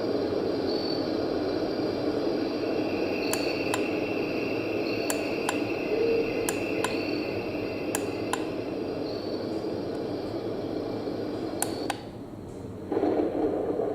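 White-noise essential oil diffuser playing one of its built-in nature sounds, a steady rushing hiss, while its buttons are pressed with short plastic clicks, often in pairs, every second or two. Near the end the sound drops out for about a second and then comes back as the tune or volume changes.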